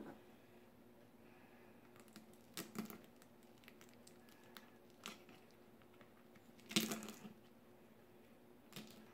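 Steel knife and fork clinking and scraping on a ceramic plate while cutting through a baked salmon steak: a handful of short, separate clicks, the loudest about seven seconds in, over a faint steady hum.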